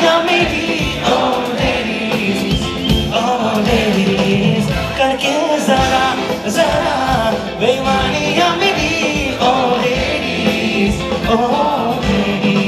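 Male lead singer with a live band of drums, guitars and keyboards, playing loud through a concert sound system.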